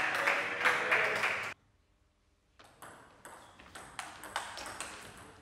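Table tennis rally: a quick run of sharp clicks as the celluloid-type ball strikes the rackets and table. It opens with a louder, noisier stretch that cuts off abruptly about a second and a half in, followed by about a second of silence before the clicking starts again.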